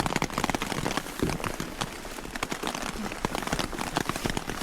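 Rain hitting a camping tent in dense, irregular drops.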